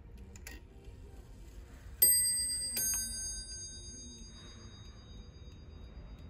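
Italian-made wind-up mantel clock striking its bell twice, about a second apart, each blow ringing out and fading over a few seconds, after a faint click.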